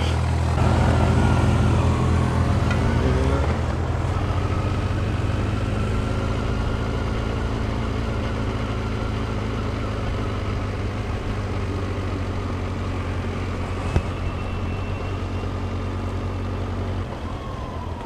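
Motorcycle engine running as the bike moves off at low speed. The revs rise over the first few seconds, then settle to a steady note. A single sharp click comes about fourteen seconds in.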